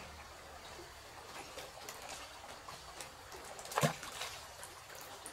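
Water trickling and lightly splashing, with small scattered clicks and one louder sudden splash or knock a little under four seconds in.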